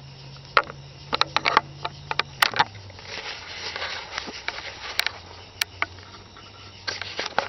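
Handling noise from a hand-held camera being moved about: irregular clicks, knocks and rustling over a low steady hum that drops in pitch about two and a half seconds in.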